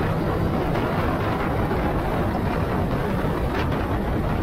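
Suzuki GSX-R1000 inline-four sport bike running on the move, its engine note mixed into a steady rush of wind noise that dominates the sound.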